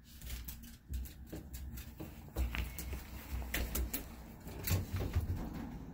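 Handling noise from a phone being moved while filming: irregular low thumps and scattered clicks, with the loudest knocks a little over two seconds in and again near the five-second mark.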